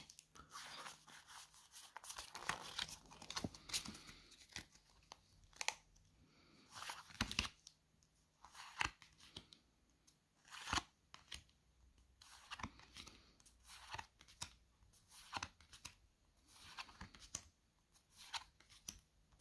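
Foil Pokémon booster pack being torn open and its cards handled and flicked through: quiet, irregular rustles, crinkles and small clicks.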